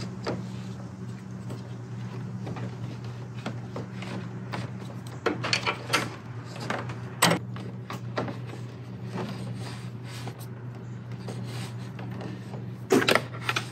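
Handling noise from winch power cables being threaded through an engine bay: rubbing and scattered clicks and knocks, with a cluster about five to seven seconds in and another near the end, over a steady low hum.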